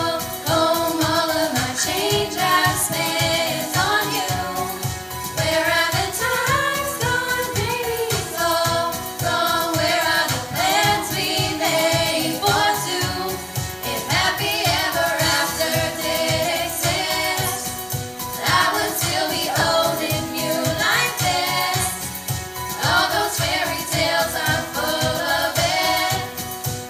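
Group of five young female singers singing a pop song together through microphones and PA speakers, over a steady low beat.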